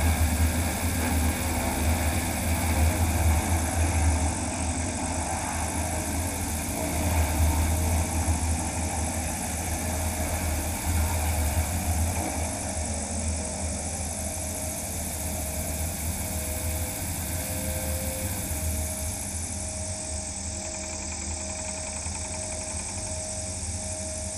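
Propeller of an all-electric DHC-2 Beaver floatplane, driven by a magniX magni500 electric motor, running as the plane moves on the water, with water rushing along the floats. Heavy low wind rumble on a camera mounted outside under the wing. The sound gradually quietens as the plane slows.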